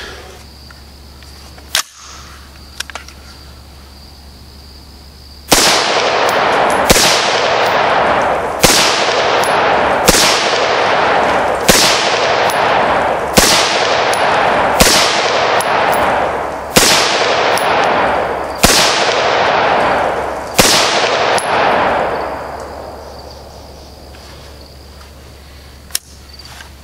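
AR carbine with no muzzle device fired in slow single shots, about ten in all, one every one and a half to two seconds, each shot echoing for over a second. A single click near the end.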